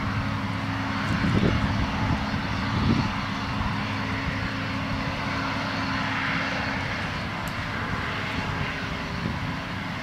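An engine running steadily: a low, even hum under a rushing hiss.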